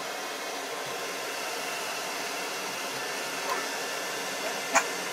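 Hand-held hair dryer blowing steadily, with a sharp click shortly before the end.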